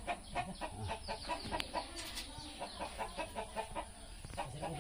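Chickens clucking, a quick run of short, sharp clucks and brief calls.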